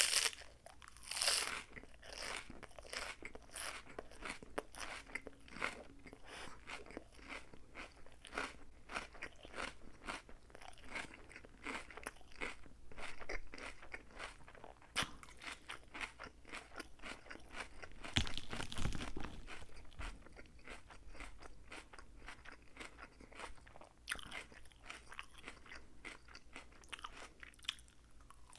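Close-miked chewing of a lettuce salad: crisp iceberg-style lettuce crunching in the mouth in dense, fast crackles, mouthful after mouthful, with louder crunches now and then.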